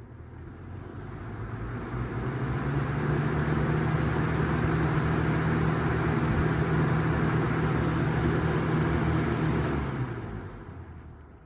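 Vintage Galaxy box fan running, a steady motor hum under the rush of air from its blades, growing louder over the first couple of seconds, holding steady, then fading away near the end.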